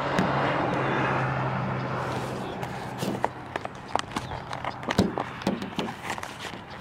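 Plastic lockout-kit wedge and air wedge being worked into the gap between a car door and its rubber weatherstrip. After a steady low hum for about two seconds, there is an irregular run of sharp clicks, taps and scrapes.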